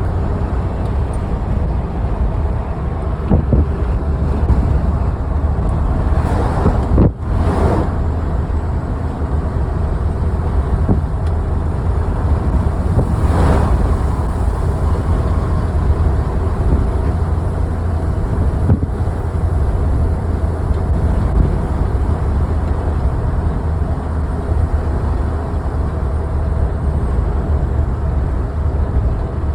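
Strong wind buffeting the microphone on a vehicle travelling along a highway: a steady low rumble with road noise. Other vehicles swish past about six to eight seconds in and again around thirteen seconds.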